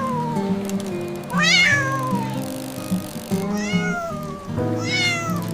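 Cat meowing three times, each meow falling in pitch, over gentle background music.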